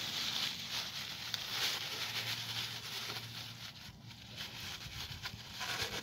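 Paper towel rubbing and rustling as it wipes down engine parts.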